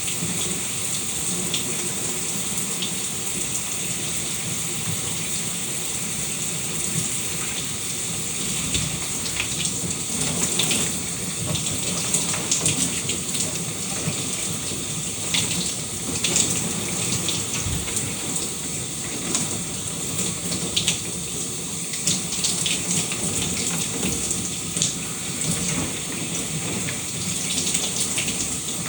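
Shower water running steadily and splattering, with frequent brief splashes.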